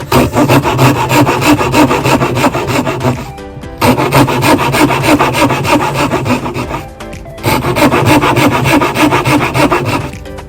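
Hand tool working wood in fast, even rasping strokes, in three runs of about three seconds each separated by short pauses, over background music.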